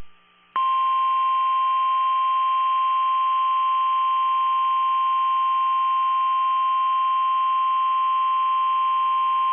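NOAA Weather Radio warning alarm tone, a single steady high tone at 1050 Hz. It starts about half a second in, holds unchanged for about nine seconds and cuts off abruptly. It signals that a warning-level alert is about to be read.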